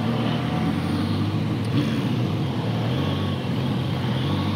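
Motorcycle engine running steadily at idle, with city traffic passing close by.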